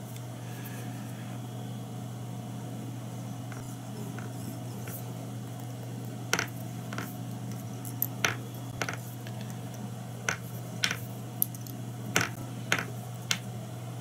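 A steady low electrical hum, with scattered light clicks and taps from hands handling fly-tying thread and tools at the vise; the clicks start about six seconds in.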